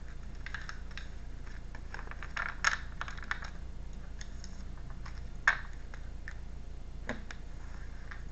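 Tarot cards being handled and laid down: scattered light clicks and snaps with a brief rustle, the sharpest snap about five and a half seconds in, over a steady low hum.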